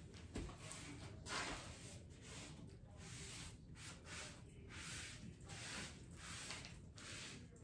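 Paintbrush stroking paint onto a wooden hutch: soft, repeated swishes about once or twice a second. A single low thump comes just after the start.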